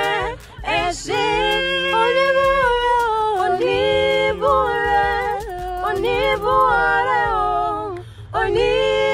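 A few voices singing a cappella together, in long held notes with phrases breaking briefly about three times.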